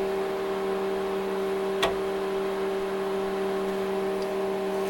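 Steady hum of the powered-up HP 54200A digital oscilloscope, several steady tones at once without change. A single light click sounds a little under two seconds in.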